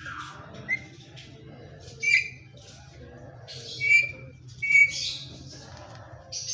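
Indian ringneck parakeet giving a series of short, sharp squawks, spaced a second or two apart. The loudest comes about five seconds in.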